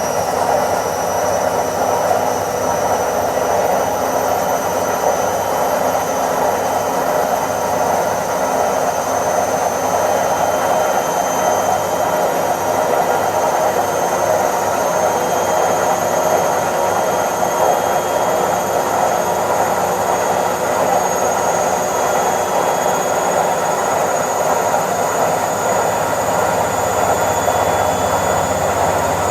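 Indesit IWC71252 front-loading washing machine on its spin cycle, the drum spinning at speed: a steady rushing hum with a thin high motor whine that edges slightly higher near the end.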